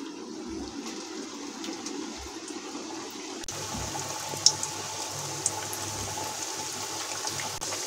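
Mathri (discs of maida dough) deep-frying in hot oil in a steel kadhai, a steady bubbling sizzle that grows a little louder about halfway through.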